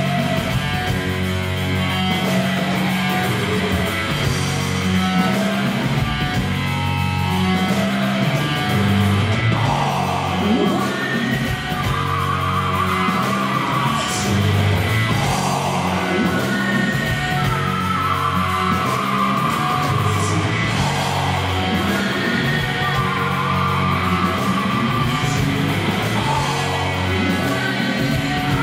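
Live rock band playing electric guitars, bass and drums, with a male singer belting long held notes into the microphone from about ten seconds in.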